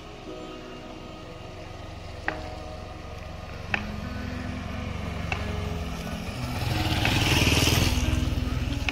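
Motor vehicle engine drawing closer and growing steadily louder, loudest about seven to eight seconds in, with a few sharp clicks earlier on.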